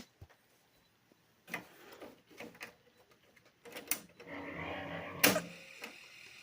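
A dying cassette tape deck during a dubbing session: scattered mechanical clicks and clunks from the tape transport, then from about four seconds in a wavering, garbled playback sound, with a sharper clunk a little after five seconds.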